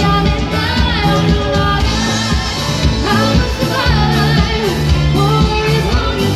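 A woman singing into a handheld microphone over music with a steady beat.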